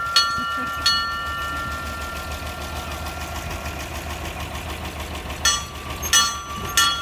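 Brass bell on an antique fire truck struck five times, twice near the start and three times near the end, each strike ringing on and fading. An engine idles steadily underneath.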